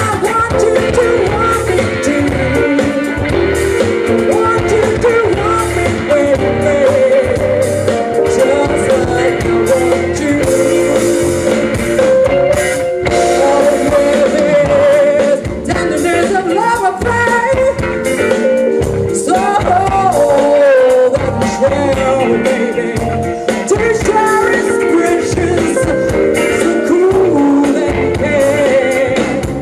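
Live band music: a woman singing over electric guitars and a drum kit.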